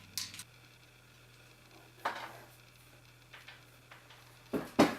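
A few scattered metallic clicks and knocks from a field-stripped AK-47's parts being handled during cleaning. The loudest is a pair of knocks near the end.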